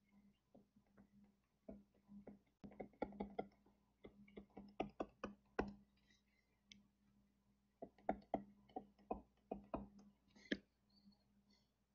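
Stylus tip tapping on a tablet screen while handwriting: two runs of short, light clicks with a pause of about two seconds between them, over a faint steady hum.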